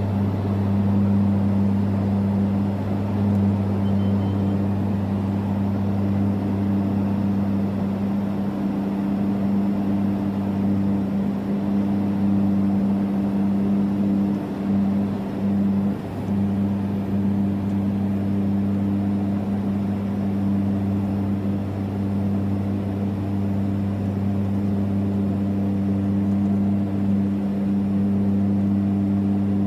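Cabin of a Beechcraft King Air twin turboprop in flight: a steady drone of engines and propellers, with a strong low hum held on a few steady tones.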